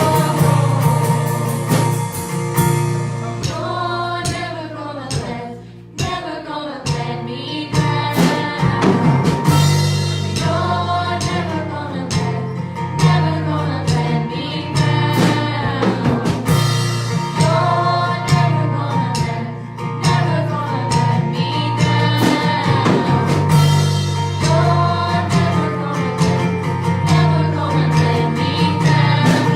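A church worship band playing a gospel song, with voices singing over guitar, bass and drums.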